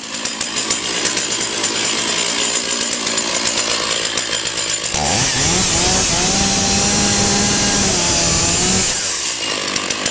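Stihl MS 460 two-stroke chainsaw with a carbide-tipped chain, idling with a fast even patter. About five seconds in it revs up to full throttle and holds there for about four seconds, cutting through firefighter turnout pants that have no Kevlar liner: the chain is not bound or stopped. It then drops back to idle.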